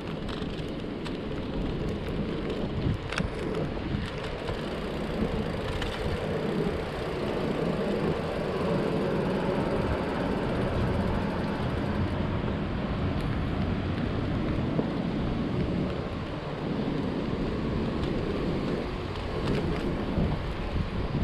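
Wind noise on the microphone and road rumble from a moving bicycle, a steady noise with a few sharp clicks.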